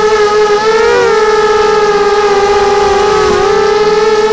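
Mini quadcopter's electric motors and propellers whining at high speed, heard from the quad itself: a loud, steady pitched whine that wavers about a second in and dips briefly near the end.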